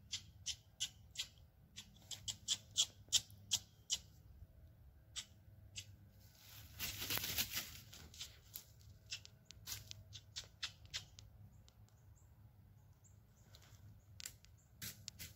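A squirrel call imitating a squirrel's barking: a run of sharp chucks that come faster over the first four seconds, a raspy drawn-out burst about seven seconds in, then a few scattered chucks.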